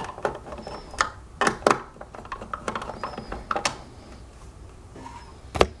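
Hard plastic parts of a self-balancing scooter (hoverboard) shell clicking and knocking as they are handled and pressed into place, with a few faint squeaks. There are several separate knocks, the loudest near the end.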